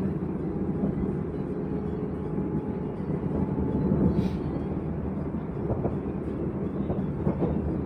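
Cabin running noise of a Z 50000 (Francilien) electric multiple unit under way: a steady low rumble of wheels on rail, with a few light knocks in the second half.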